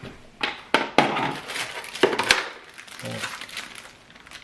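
Router equipment and its packaging being handled: several sharp clicks and knocks of hard plastic parts, with rustling and crinkling between.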